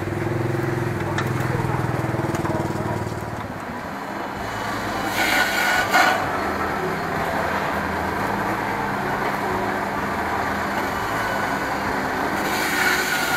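Busy open-air market ambience: indistinct voices and chatter over a running motor vehicle engine, with two short rushing noises, one about five seconds in and one near the end.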